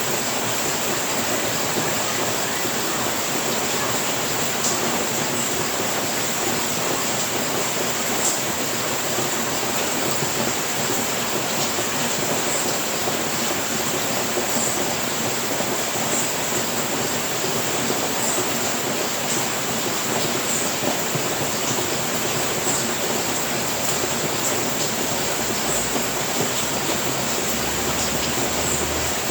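Steady rain falling: an even, unbroken hiss with a few faint ticks scattered through it.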